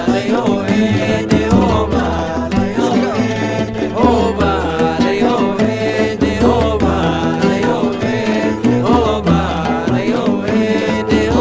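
Music with a repeating bass line, percussion and a melody line.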